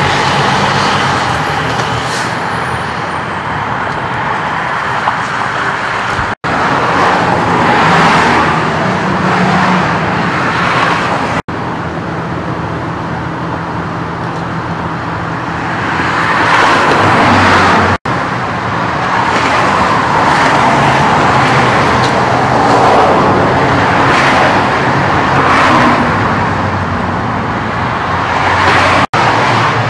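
Freeway traffic rushing past in repeated swells as vehicles go by, over a steady low hum. The sound drops out for an instant four times.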